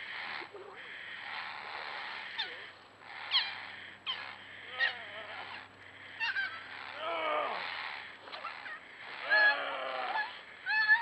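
Small puppy yelping and screaming in distress, a string of sharp high cries that mostly fall in pitch, loudest near the end, over splashing water.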